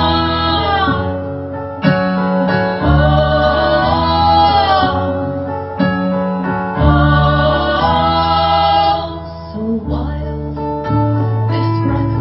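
Live acoustic folk song: women singing long, wavering phrases over guitar, with the singing easing off and the guitar strumming coming forward near the end.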